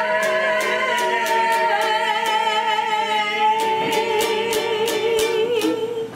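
A long sung note held with vibrato over a steadily strummed ukulele, about three strums a second; the music stops near the end.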